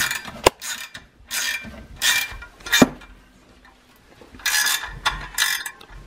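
Ratchet wrench clicking in short runs of strokes, with a pause about halfway through, as it tightens the nut on a threaded-rod spring compressor to squeeze a snowmobile secondary clutch's spring.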